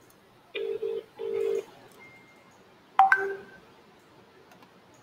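Telephone tones: a low double ring sounds twice in quick succession. About three seconds in comes a sharp click and a brief higher beep, as a phone call is being connected.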